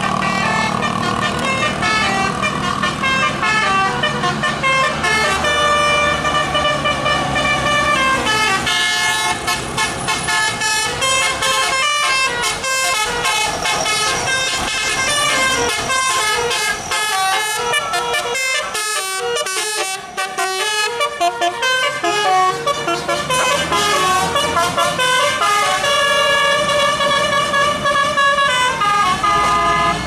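Bus 'telolet' musical air horn playing a tune of stepped notes: long held notes at first, a fast run of short notes through the middle, then held notes again near the end.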